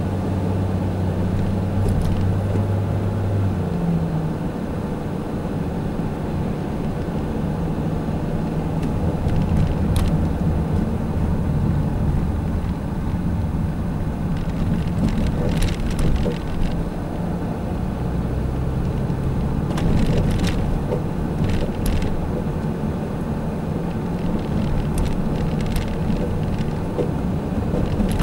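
Vehicle engine hum and road rumble heard from inside the cab while driving slowly in traffic, the engine note shifting a few times as speed changes.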